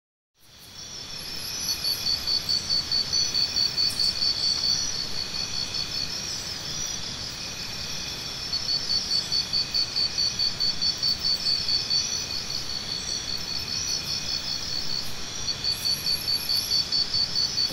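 Insects chirping in a high, pulsing trill of about four pulses a second over a steady background hiss, fading in at the start. The trill comes in long stretches and drops back in between.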